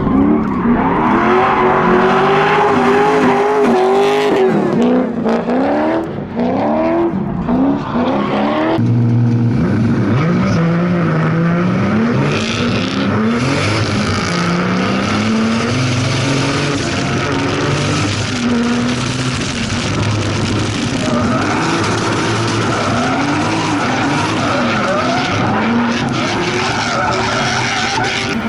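Drift car engine revving hard, its pitch rising and falling again and again as the throttle is worked, with tyres squealing and skidding. The sound changes abruptly about nine seconds in.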